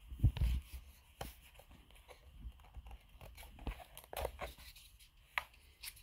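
Handling noise from an Uber Beacon and its cardboard box: scattered clicks, taps and rustles, with a louder knock right at the start.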